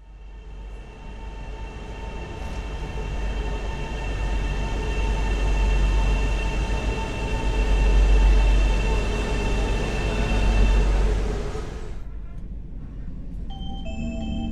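Arlanda Express X3 high-speed electric train running, a heavy low rumble under a steady electric-motor whine, swelling in loudness and easing off. About twelve seconds in the sound cuts off sharply, and a few short tones follow near the end.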